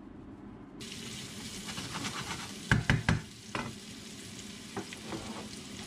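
Sliced red onions sizzling in a hot frying pan, the hiss starting abruptly about a second in. A wooden spoon knocks against the pan several times as the onions are stirred, loudest in a quick cluster about halfway through, with a few lighter taps after.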